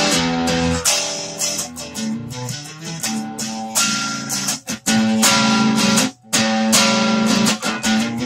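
Electric guitar played through a Fender Frontman 15G amp on a crunchy overdriven blues tone: chords and riffs struck and held about a second each, a few of them cut off abruptly.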